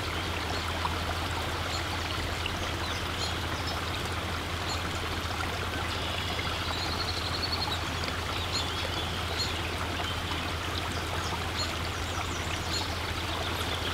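A forest stream running steadily, with a few faint bird chirps and a short trill above it.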